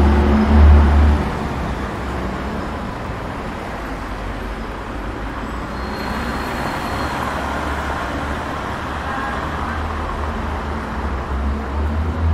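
Street traffic noise: a steady wash of road sound, with a heavy low rumble in the first second and again near the end as vehicles pass close.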